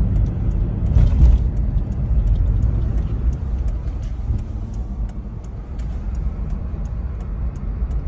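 Steady low rumble of a road vehicle running, with a faint, even ticking about three to four times a second starting about a second and a half in.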